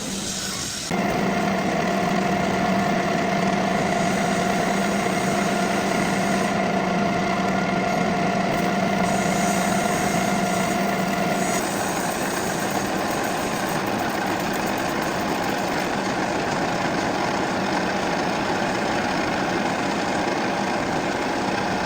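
Metal lathe running steadily, a constant machine hum with a higher whine over it. The level steps up about a second in, and the whine's middle tone stops a little past halfway while the hum runs on.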